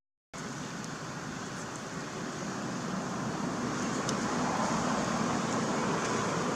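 Steady rushing background noise, growing slightly louder, after a short dropout to silence at the very start.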